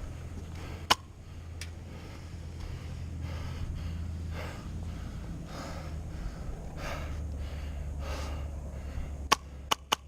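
Heavy breathing close to the microphone, a breath about every second and a half. A single sharp crack about a second in and a quick run of three or four sharp cracks near the end.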